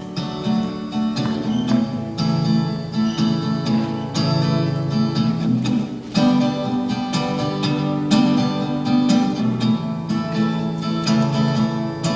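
Instrumental song intro on acoustic guitar: picked and strummed chords in a steady rhythm, with no singing yet.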